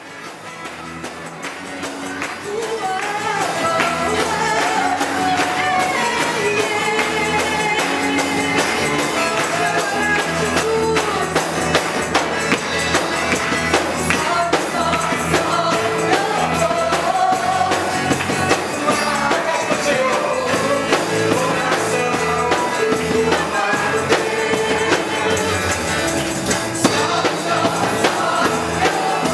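Portuguese Christian worship song (louvor): a voice singing a melody over a steady beat with bright, regular percussion, fading in over the first few seconds.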